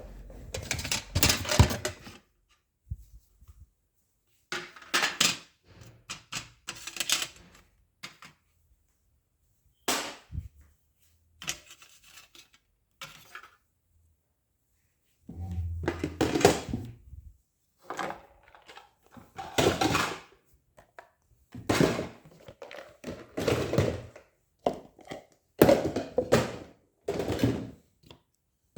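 Repeated thunks and clattering of hard objects being handled, in bursts a second or two long with short quiet gaps between them.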